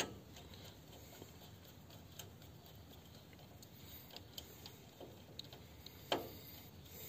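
Faint, scattered clicks and light taps of small plastic copier parts being handled and fitted, with one louder tap about six seconds in.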